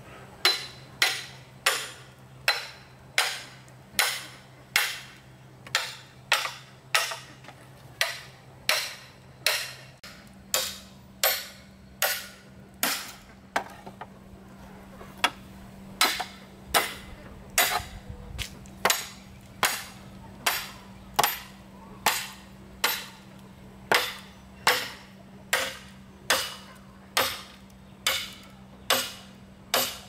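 Machete chopping into a green bamboo pole in steady strokes, about two a second, each a sharp knock with a brief ringing tone from the hollow bamboo.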